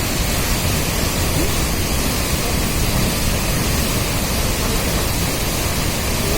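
Steady, loud rush of white water pouring from Masanjor Dam.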